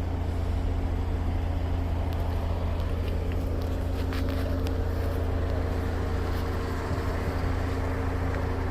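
A vehicle's engine running steadily with a low hum, with a few light clicks about three to four and a half seconds in.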